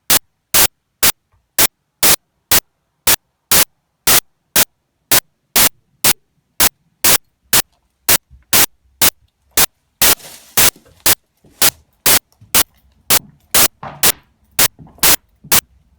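Loud, sharp clicks repeating evenly about twice a second, with near silence between them and a short burst of hiss about ten seconds in.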